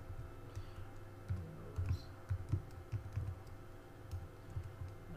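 Typing on a computer keyboard: a dozen or so irregular keystroke clicks with soft low thumps, over a faint steady hum.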